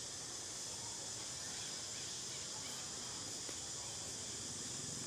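Steady, high-pitched outdoor insect chorus, a continuous shrill buzz that does not change. There is one faint tick about three and a half seconds in.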